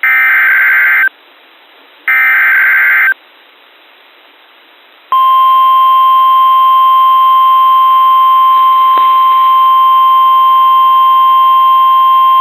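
Two harsh, buzzy bursts of EAS SAME header data, about a second each, then after a short pause a steady single-pitch alert tone about five seconds in, held without a break: the Weather Radio 1050 Hz warning alarm that announces a new severe thunderstorm warning.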